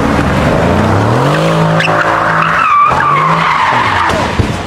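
Mercedes-AMG C63's twin-turbo V8 revving hard with rising pitch under full acceleration, then tyres squealing in a falling whine as the car loses traction and slides off the road. A sharp thump comes near the end as it strikes the curb.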